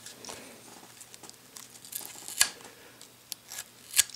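Faint handling sounds: light rustling, with two sharp clicks about two and a half seconds in and near the end.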